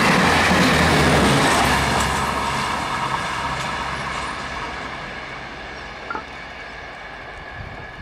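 Tail end of a speeding express passenger train rushing past on the rails, its steady wheel-and-rail noise fading away over the first several seconds as the train recedes.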